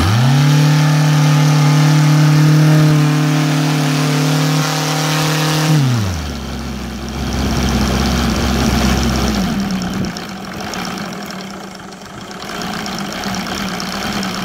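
OS Sirius 7 FR7-420 seven-cylinder radial model engine, running on glow fuel with CDI ignition and swinging a 24x10 propeller, revs up right at the start and runs fast and steady for about six seconds. It is then throttled back sharply, dropping in pitch, and settles into a steady low idle for the rest.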